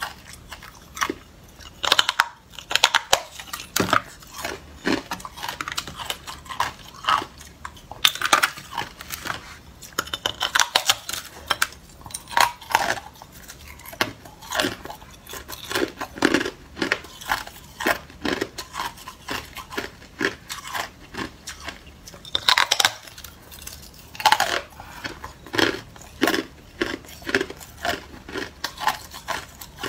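Hard clear ice being bitten and chewed: a run of sharp, irregular crunches and cracks as chunks break off the block and are ground between the teeth.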